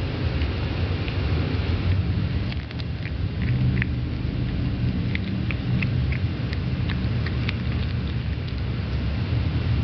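Cat chewing a live-caught lizard: scattered small, sharp crunches of the lizard's bones, most of them bunched in the middle seconds, over a steady low rumble.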